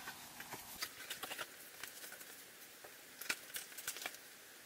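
Cardboard product box being opened and a paper letter handled: scattered light taps, scrapes and paper rustling, with the sharpest knock about three seconds in.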